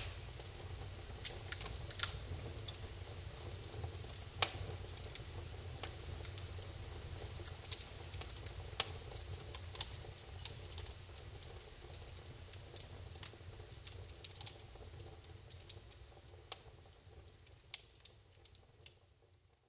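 Wood fire crackling in a fireplace: irregular snaps and pops over a low steady rumble, fading out near the end.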